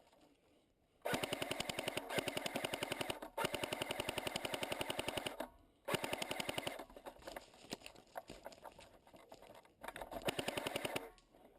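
Airsoft gun firing on full auto, a rapid even rattle in long bursts: two bursts of about two seconds each, then shorter and fainter fire, and a last loud burst near the end.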